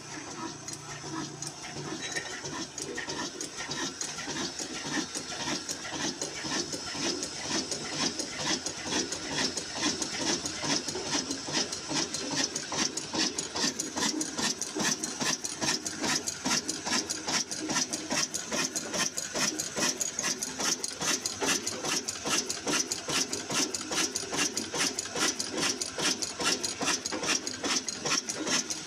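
Old Ruston-pattern single-cylinder horizontal diesel engine running with an even, rhythmic beat and clicking of its valve gear. It grows louder over the first several seconds and then runs steadily.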